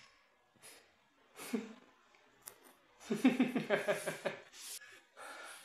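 A man laughing: a quick run of evenly spaced "ha" pulses starting about three seconds in and lasting under two seconds.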